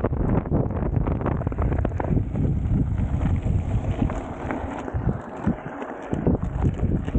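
Wind buffeting the microphone as a mountain bike rolls over a gravel track, with tyres crunching and the bike rattling in many short clicks and knocks. The low wind rumble eases for a couple of seconds a little past the middle, then comes back.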